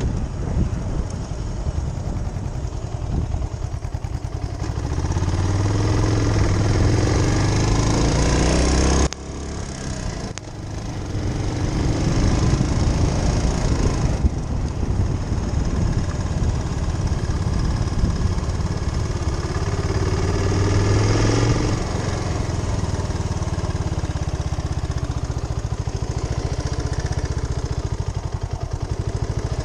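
Suzuki Savage's 652 cc single-cylinder engine pulling under way. Its pitch rises as the throttle opens, drops suddenly about nine seconds in as the throttle closes, and climbs again twice before settling to a steady cruise in the last third.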